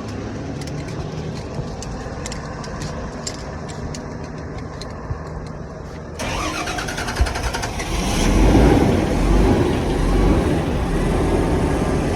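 Bus engine running with a misfire, at first a steady hum; about six seconds in the sound suddenly gets louder, and a deeper engine rumble swells up about two seconds later, as if pulling away under load.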